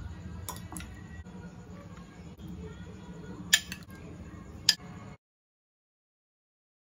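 Metal spoon clinking against a glass mug as dessert is spooned in: a few light clinks, then two sharp ones about three and a half and four and a half seconds in. The sound then cuts off to silence.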